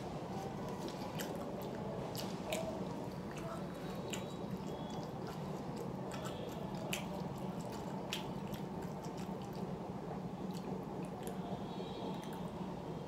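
Close-up sounds of a person chewing a meal of rice and fish: wet squishing mouth noises and many small irregular clicks and smacks, over a steady low hum.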